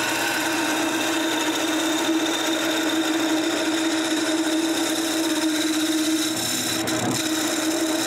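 Wood lathe running with a steady motor hum while a turning tool cuts the spinning cherry blank, adding a continuous hiss of shavings.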